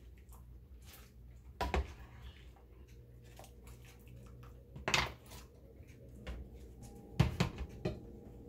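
Large slotted metal scoop clinking and knocking against stainless steel pots as diced parboiled potatoes are lifted from the cooking water into an ice-water bath. A few separate clinks, the loudest about five seconds in and two close together around seven seconds, over a low steady hum.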